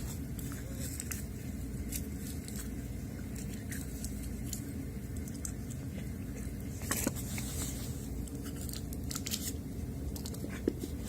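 Faint crinkling and clicking of a chocolate ball's wrapper being opened, scattered over a steady low room hum, with a slightly louder click about seven seconds in.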